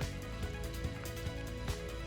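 Background music with a steady beat under sustained held notes.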